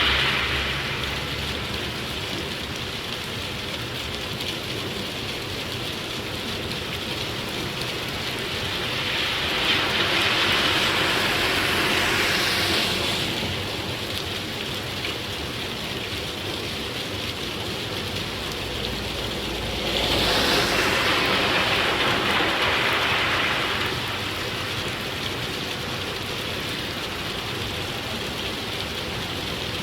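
Steady rain on a wet street, with cars passing on the wet road. Their tyres swish up and fade away, once about ten seconds in and again about twenty seconds in.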